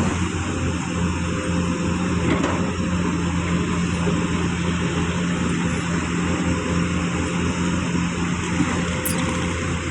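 Diesel engine of heavy construction machinery running steadily, a constant low hum over broad mechanical noise.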